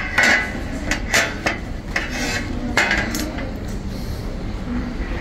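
Clattering and clinking of hard objects, with several sharp clanks in the first three seconds and fewer after, over a steady background hubbub.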